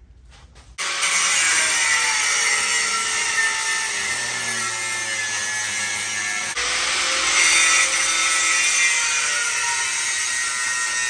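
Power grinder with an abrasive cutting disc cutting through steel frame tubing and welds, starting about a second in. Its whine sags in pitch as the disc bites, eases off for a moment a little past halfway, then cuts again.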